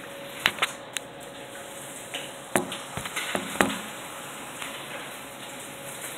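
Heavy rain pouring steadily with a hissing wash, broken by a few sharp clicks and knocks, about half a second in and again between about two and a half and four seconds in.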